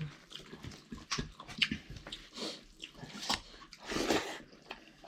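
Close-miked eating: chewing with irregular wet smacks and clicks of the mouth, with a short breathy hiss about four seconds in.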